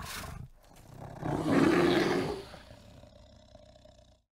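Brown bear growling: a short rough huff at the start, then one loud, rough growl about a second in that lasts about a second and a half.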